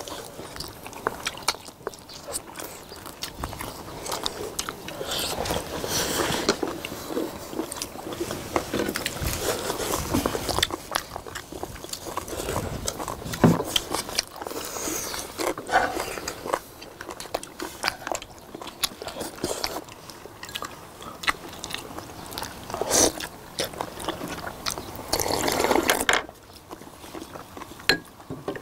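Close-up eating sounds: several people biting and chewing braised beef short ribs and side dishes, with frequent small clicks of chopsticks and spoons against bowls and plates.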